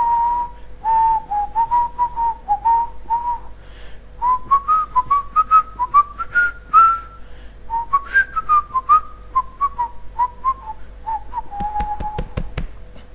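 A man whistling a tune by mouth, one clear note at a time. The notes climb in the middle and settle lower toward the end. Near the end comes a quick run of sharp knocks.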